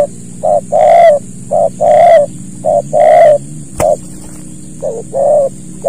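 Spotted dove (tekukur) cooing: a short coo followed by a longer one, repeated about four times, with a pause in the middle.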